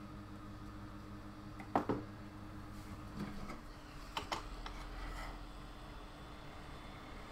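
Light clicks and taps of wires and a plastic connector being handled on a workbench, the loudest about two seconds in, over a faint steady hum that stops about halfway through.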